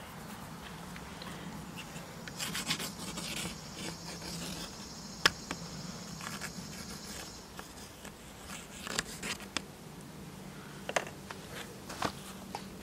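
Graphite pencil scratching across a small acrylic-painted panel in short scribbled bursts, with a sharp tap about five seconds in. A faint low hum runs underneath.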